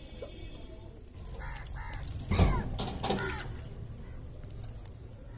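Crows cawing, a quick run of harsh calls from about a second and a half in to about three and a half seconds, with a low thump among them about two and a half seconds in.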